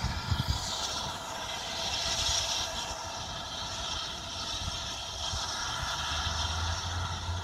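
Steam locomotive heard at a distance as a steady hiss with a faint hum, swelling about two seconds in, with a low rumble near the end.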